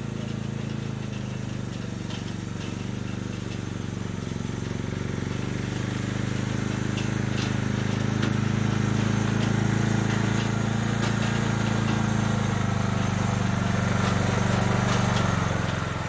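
Engine of a small vehicle carrying several people, running steadily and growing louder over the first half as it approaches.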